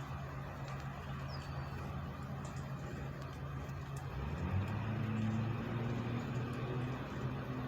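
Vehicle engine running steadily, its note shifting about four seconds in as the engine speed changes.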